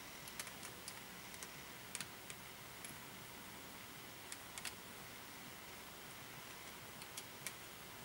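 Light, irregular clicks and taps from hands handling a wool coat on a dress form and working at its buttons, over a steady hiss.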